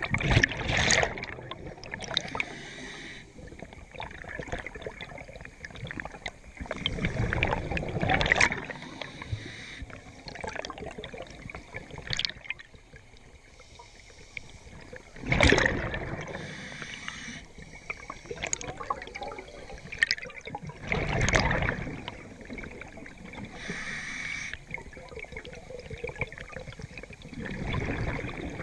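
Scuba regulator breathing heard underwater: the diver's exhaled bubbles rush out in five loud bursts about six to seven seconds apart, with softer hissing and bubbling between breaths.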